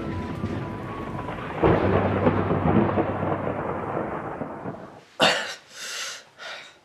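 A deep boom about a second and a half in, rumbling away like thunder over about three seconds, then a boy gasping and panting in several quick, sharp breaths.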